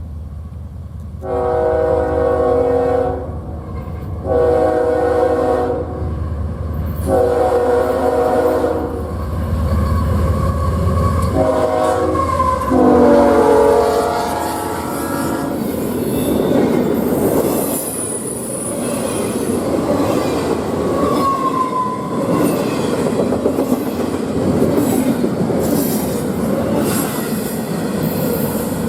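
Diesel freight locomotive sounding its multi-chime air horn in a long, long, short, long crossing pattern over the rumble of its engine. The train then rolls past with wheels clattering over the rail joints and brief high squeals from the wheels.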